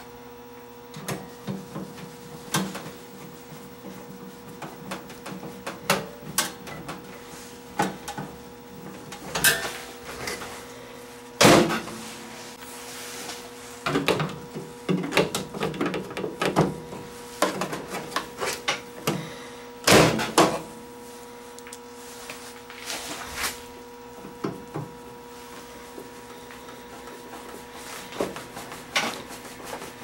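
Irregular clicks, knocks and rattles of plastic and sheet-metal parts being handled and fitted on an over-the-range microwave oven, with two louder knocks about a third and two-thirds of the way through. A steady hum runs underneath.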